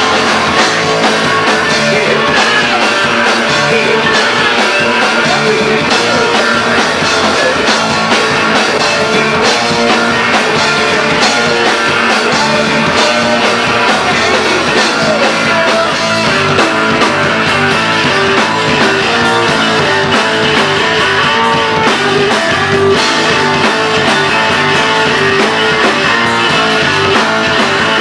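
Hardcore punk band playing live: shouted vocals over electric guitar and a drum kit. In the second half a repeating guitar riff stands out.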